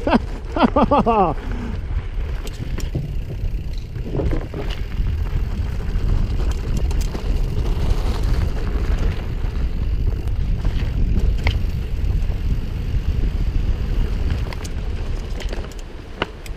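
Steady low rumble of wind buffeting the microphone while moving quickly along a dirt trail, with scattered faint clicks and knocks. A brief voice sounds in the first second or so.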